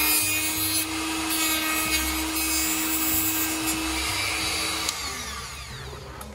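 Handheld rotary tool with a cutting wheel running at high speed, cutting a notch into the end of a door-jamb piece with a steady high whine. About five seconds in it is switched off and the whine slides down in pitch as the wheel spins down.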